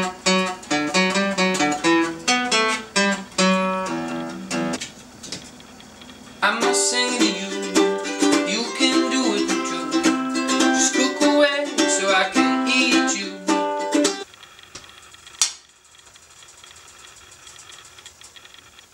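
Acoustic guitar played as a quick run of separate notes that fades out about five seconds in. A second, busier and higher passage starts abruptly about a second later and stops about fourteen seconds in. Then quiet room tone with a single knock.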